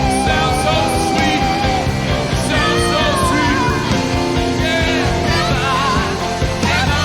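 Rock band playing live, with singing over it: a long held note gives way to wavering, bending vocal runs.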